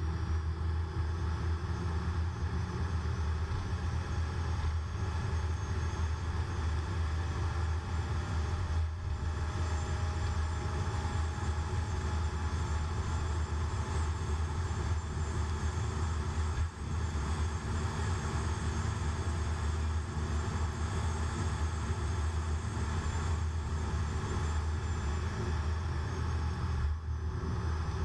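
Car cruising at highway speed, heard from inside the cabin: a steady low engine and road drone with constant tyre and wind hiss.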